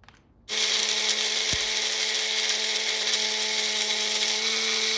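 Electric mixer grinder (mixie) switched on about half a second in, its motor running steadily at speed with a constant hum as it grinds roasted whole spices in its small jar into garam masala powder.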